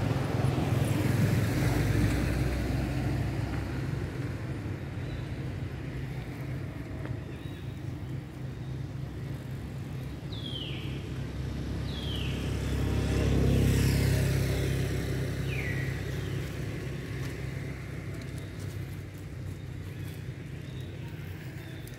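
Low engine rumble of a passing motor vehicle. It swells early on, fades, swells again to its loudest a little past the middle, and dies away. Three short, high, falling chirps sound over it.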